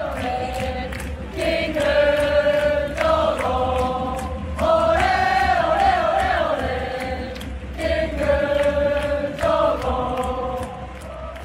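A large crowd of football supporters singing a chant together in long held notes over a steady beat. The same phrase comes round twice.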